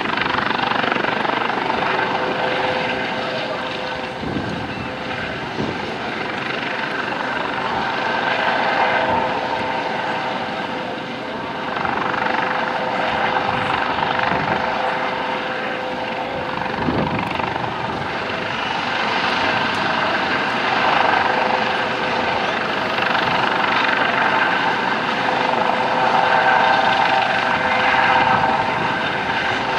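US Coast Guard MH-65 Dolphin twin-turbine helicopter hovering low over the water: a steady turbine whine under the rotor's rush, swelling and easing slightly as it holds position.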